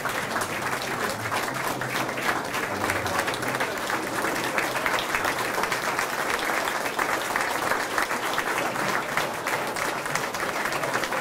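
A roomful of people applauding steadily, a dense patter of many hands clapping at once.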